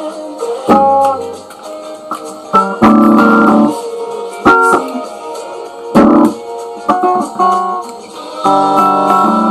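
Les Paul-style electric guitar played through an amp, chords struck in short separate bursts with pauses between, some cut short and some left to ring; the last chord rings on near the end.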